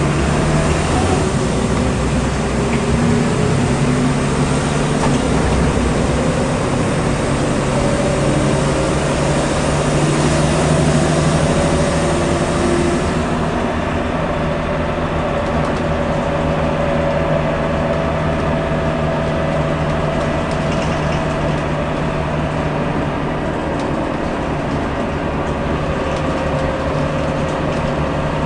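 A BCI JXK6120AG bus's rear-mounted Cat C7 inline-six diesel and drivetrain, heard from inside the passenger cabin while under way, running steadily with road noise. The high hiss drops about halfway through.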